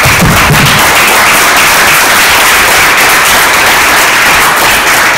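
Audience applauding: loud, steady clapping from many hands, some of them close by.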